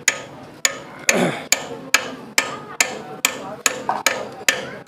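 Steel hammer tapping a Kirloskar diesel engine's timing gear onto its keyed shaft: a steady run of sharp metal-on-metal taps, about two and a half a second, each with a short ring, seating the gear to set the injection timing.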